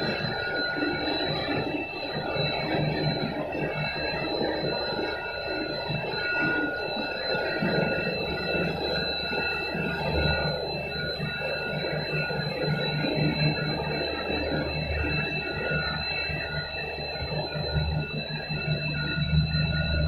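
Snack production line machinery running: a steady mechanical hum and rumble, with several steady high-pitched whines on top.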